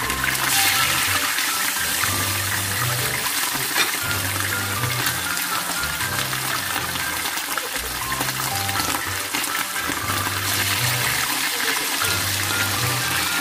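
Pieces of sea bream frying in hot oil in a pan: a steady sizzling hiss. Background music with a repeating bass line and a light melody plays over it.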